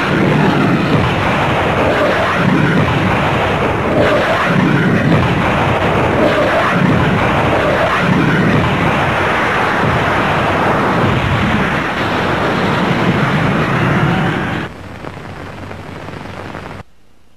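Military jet aircraft roaring and explosions booming over and over, a loud rumbling din that drops sharply near the end and then cuts out to hiss.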